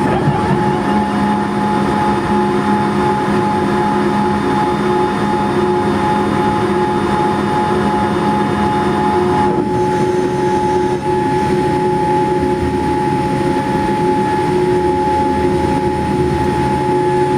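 Boeing 787-8's GEnx-1B jet engines running, heard inside the cabin as a steady hum with several held whining tones. Some of the higher tones drop away about ten seconds in.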